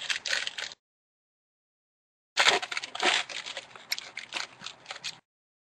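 Foil wrapper of a trading-card pack crinkling as hands tear it open and handle it, in two spells with a gap of complete silence of about a second and a half between them.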